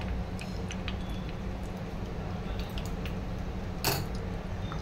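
Desi ghee heating in an aluminium pot, with faint scattered crackles and one sharper pop about four seconds in, over a steady low hum.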